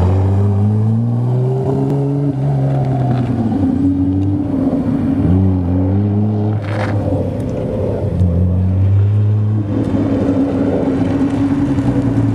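Vintage race car engine running and revved about three times, the pitch climbing and dropping back each time before settling to a steady idle.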